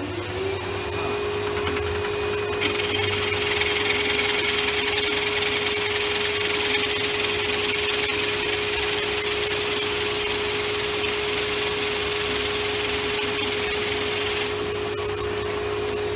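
Drill press turning a 40 mm toy wheel cutter at slow speed (580 RPM), the cutter shaving into a hardwood board with a steady hiss of cutting from about two and a half seconds in until about fourteen seconds. Under it runs a steady whine from the machine and a dust blower clearing the chips.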